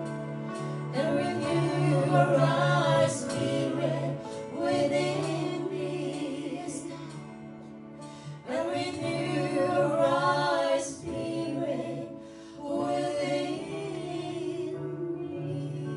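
Women singing a slow worship song into microphones over sustained electronic keyboard chords. The voices come in phrases of a few seconds with short pauses, while the keyboard holds its chords underneath.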